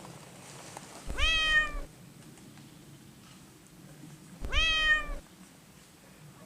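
Domestic cat meowing twice: two matching drawn-out meows about three seconds apart, each rising slightly in pitch and then falling away.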